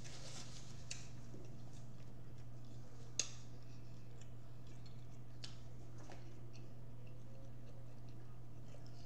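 Quiet eating sounds: a paper napkin rustling at first, then scattered small clicks and smacks of chewing, with one sharper click about three seconds in, over a steady low hum.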